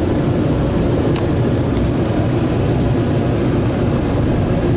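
Ryko Softgloss Maxx car wash dryer blowers running at the drying stage: a steady, loud rush of air with a low hum, heard from inside the vehicle's cabin. A faint click comes about a second in.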